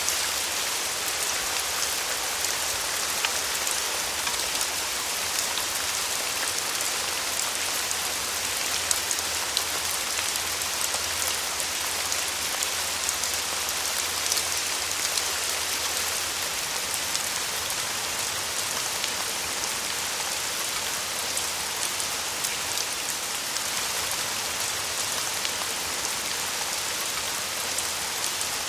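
Steady rain falling on a surface: a dense, even hiss with many distinct drop ticks scattered through it.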